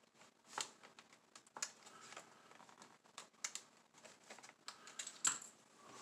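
Faint, irregular plastic clicks and taps as a hand presses and works at a laptop's plastic bottom cover, trying to pop its stuck clips loose.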